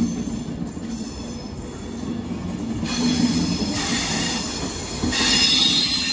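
A train running past with its wheels squealing, several shrill high tones over a low rumble, growing loudest about five seconds in; loud enough to hurt the ears.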